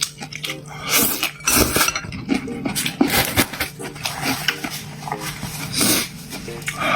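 Eating sounds close to the microphone: a run of noisy mouthfuls and slurps, mixed with clinks of utensils against dishes.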